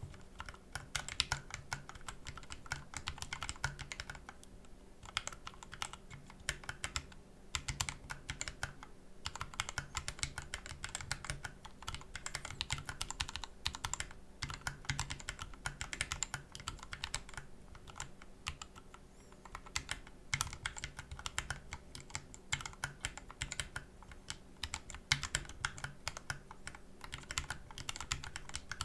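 Typing on a Corne split mechanical keyboard with Tealios v2 67g linear switches lubed with Krytox 205g0, DSA PBT keycaps and a 3D-printed ABS case: a steady stream of keystroke clacks, broken by a few short pauses.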